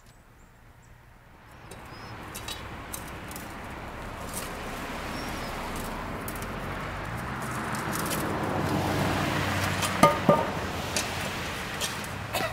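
Road traffic passing, tyre and engine noise building and fading away, then a few sharp metallic clanks with a ringing tone about ten seconds in as a cast iron manhole cover is pried up with a hook bar.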